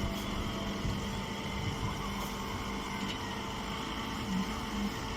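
Hydraulic grass baler's power unit running with a steady hum.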